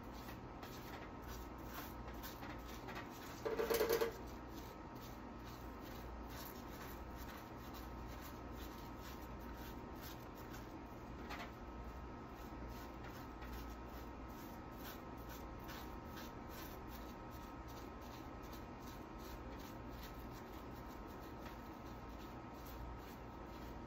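Small paintbrush dabbing and rubbing on a chainsaw-carved wooden cat, faint quick ticks and rubs, over a steady low hum. A brief louder tone sounds once about three and a half seconds in.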